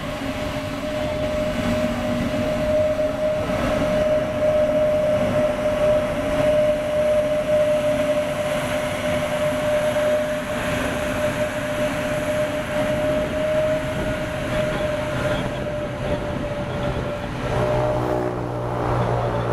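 Airbus A320neo's turbofan engines at taxi power close by: a steady whine over a broad rushing noise. Near the end a lower buzzing drone comes in as the jet turns its exhausts toward the listener.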